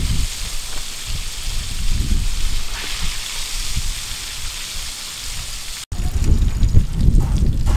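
Hot oil sizzling steadily as battered fish deep-fries in a wok, with a low rumble underneath. About six seconds in the sound cuts abruptly: the hiss drops away, the rumble grows and a few light knocks follow.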